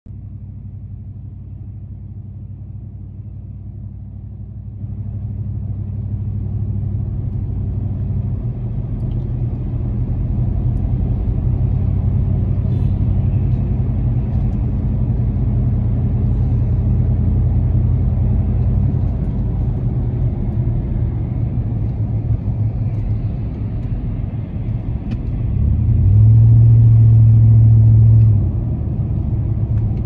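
Road noise heard inside a car's cabin on a wet road: a steady low rumble of tyres and engine that grows louder about five seconds in and again a few seconds later. Near the end a louder low drone with a steady pitch sets in for about two seconds.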